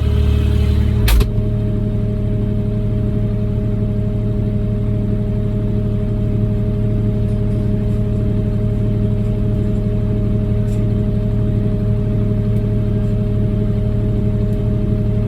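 Kubota RTV 1100 utility vehicle's three-cylinder diesel engine running steadily, with a brief knock about a second in.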